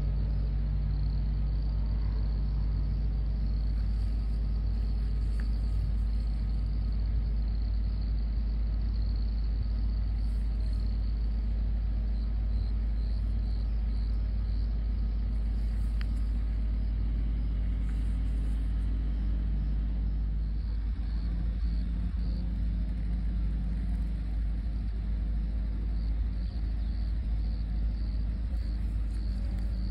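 Outdoor ambience: a steady low rumble with insects chirping in quick, evenly repeated pulses that grow plainer near the end.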